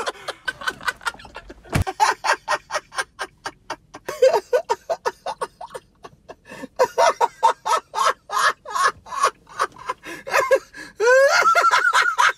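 A man laughing hard and breathlessly, in quick pulses of about four a second with gasps between, breaking into a few words near the end.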